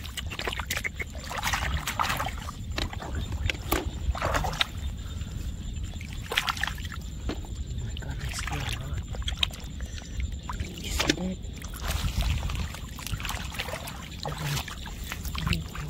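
Hands digging in wet mud under shallow water for clams: irregular splashing, sloshing and squelching, many short strokes, over a steady low rumble.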